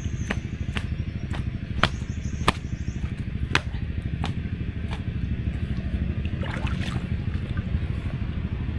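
Small boat engine running steadily with a low, fluttering rumble, with scattered sharp clicks and drips over it.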